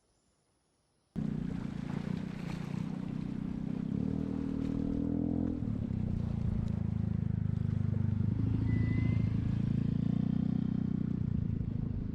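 A vehicle engine running, cutting in abruptly about a second in. Its pitch climbs as it revs between about four and five seconds in, then drops back and holds steady.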